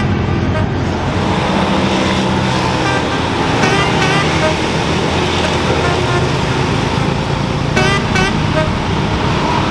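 Road traffic: vehicles running past in a steady dense rumble, with short high chirps about four seconds in and again near eight seconds.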